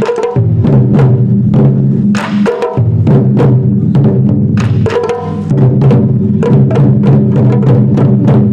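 Taiko drum ensemble playing a fast, dense rhythm of sharp strikes over the drums' ringing, with a few very short breaks between phrases.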